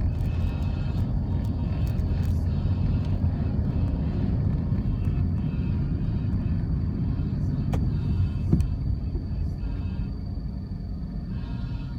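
Steady low rumble of road traffic, with a couple of sharp clicks about eight seconds in.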